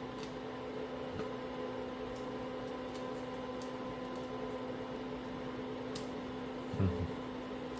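Steady hum of shop machinery with a few faint metallic tool clicks during hands-on work on a power steering rack, and one dull knock shortly before the end.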